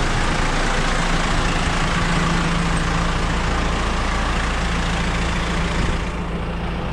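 JCB 4CX backhoe loader's diesel engine running steadily. About six seconds in, the higher-pitched part of the sound falls away and the engine carries on more quietly.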